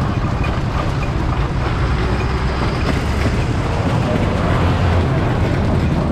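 Several motorcycle engines running steadily at road speed, a continuous low rumble with road noise.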